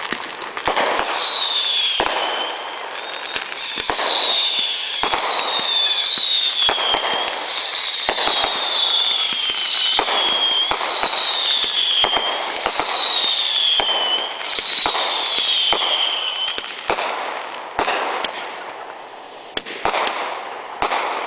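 Consumer fireworks going off in a rapid barrage of bangs and crackling, with a string of whistling shells, each whistle falling in pitch, one after another through most of the barrage. Near the end the whistles stop and only scattered bangs remain.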